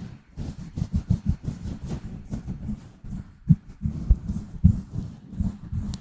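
Fingers scratching and rubbing directly on a microphone, giving a quick uneven run of low, muffled scratchy thumps with faint hiss.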